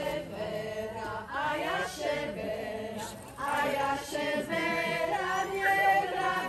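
A mixed group of voices singing a Slovak folk song together in chorus, with a short break in the line about halfway through.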